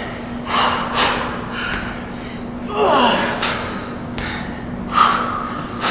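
Hard breathing from exercise effort: short sharp exhales and gasps about once a second or two, with a brief falling vocal grunt about three seconds in, over a faint steady hum.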